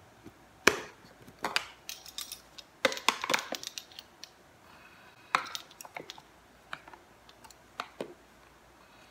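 Metal spoon clinking and tapping against a spice container and dish while half a teaspoon of chilli powder is measured out: a scatter of sharp clicks, bunched about three seconds in, then single taps.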